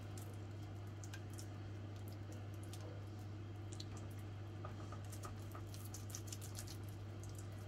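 Faint soft clicks and squelches of fingers rubbing and pressing wet masala paste into a whole raw fish, over a steady low hum.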